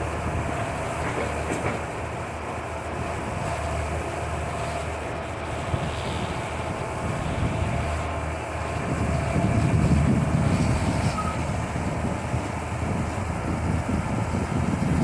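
Diesel engine and hydraulics of a Hitachi crawler excavator running steadily while it digs and loads earth into a dump truck, a continuous mechanical rumble that grows louder about nine seconds in.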